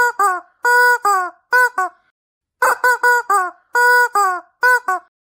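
Rubber chicken squeaky toy squeezed again and again: a quick run of loud honking squawks, mostly in pairs of a held note followed by a falling one, with a short pause about two seconds in.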